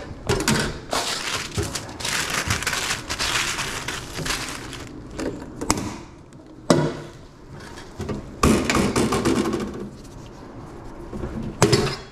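Deli paper rustling and crinkling as hot dogs are wrapped, in two long spells, with a few sharp knocks and clicks of utensils handled at a stainless steel counter.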